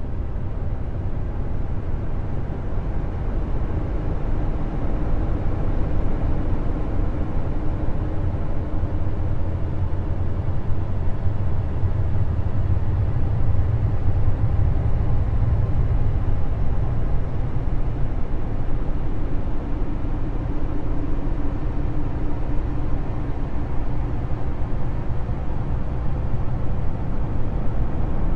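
A steady deep drone with a fainter hum above it that swells and fades twice, presented as the sound of a planet: spacecraft space-sound data turned into audio. It cuts off abruptly at the end.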